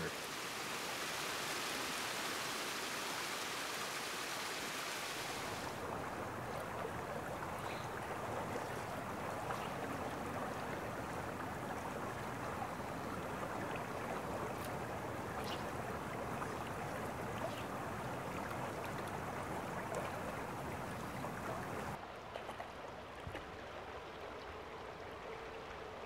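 Running water of a rocky stream: a small cascade splashing over stones with a bright hiss, changing about six seconds in to a softer, steady flow, and quieter again from about 22 seconds in.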